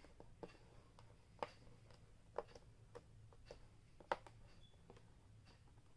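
Near silence broken by a few faint taps and clicks as pom-pom markers with magnetic bases are lifted and set down on a volleyball coaching board.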